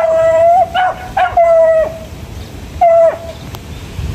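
Hunting beagle baying: four loud, level howls, two long and two short, each dropping in pitch as it ends. The last comes about three seconds in.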